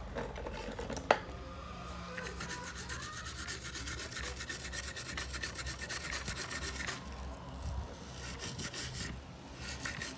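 Brush scrubbing a laptop motherboard wet with benzene, in quick back-and-forth strokes that pause for about two seconds and then start again. A sharp knock comes about a second in.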